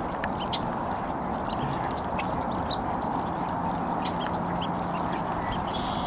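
Many ducks quacking together in a steady, dense chorus, with short high chirps of small birds scattered through it.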